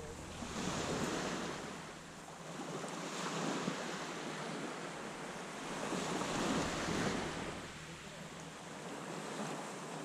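Small waves breaking and washing up a sandy, pebbly beach, the surf swelling and fading every few seconds.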